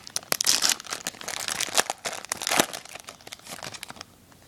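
Foil wrapper of a Topps Chrome baseball card pack crinkling as it is torn open by hand. The crackling stops about four seconds in, once the pack is open.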